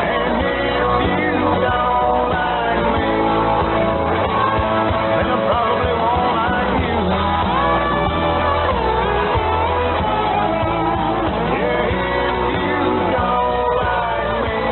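A song with singing and guitar received over AM shortwave radio, the sound narrow and cut off above about 4 kHz.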